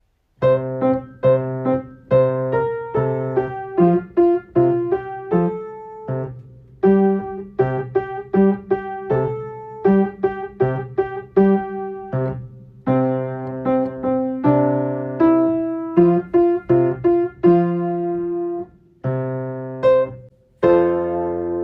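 Piano playing a simple tune: melody notes over single low bass notes, with two short pauses between phrases.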